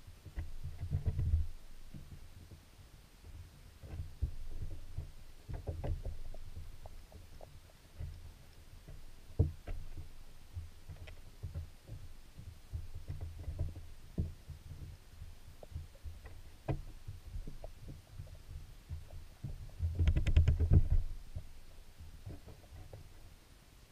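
Underwater sound of creek water moving around a submerged camera inside a wire minnow trap: low, uneven rumbling and throbbing with scattered clicks and knocks. About twenty seconds in comes a louder rumbling surge with a quick run of clicks.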